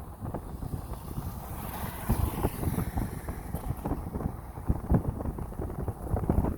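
Wind buffeting the microphone: an irregular low rumble that comes in gusts.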